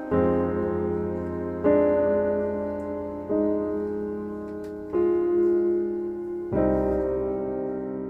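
Background music: slow solo piano chords, a new chord struck about every second and a half and left to ring out.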